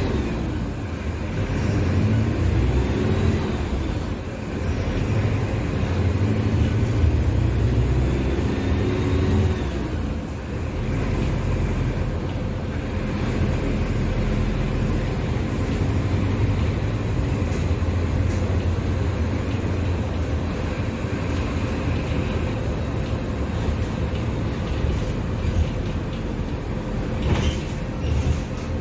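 Mercedes-Benz OF-1721 BlueTec 5 bus's four-cylinder diesel engine pulling the bus, its pitch rising through the gears twice in the first ten seconds, then running steadily at cruising speed. A short knock near the end.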